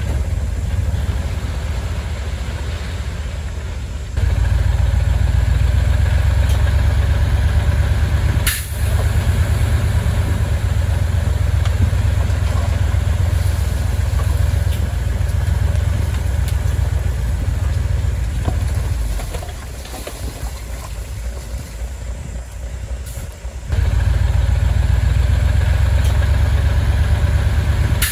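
Heavy diesel engine of construction machinery running with a deep, evenly pulsing low note. It gets abruptly louder about four seconds in, drops back for a few seconds past the twenty-second mark, and comes up loud again near the end. A single sharp click comes about eight and a half seconds in.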